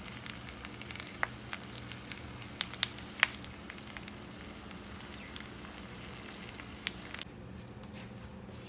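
Fish in a masala sauce on a banana leaf sizzling in a frying pan, with scattered sharp pops and crackles over a steady low hum. The hiss thins out about seven seconds in.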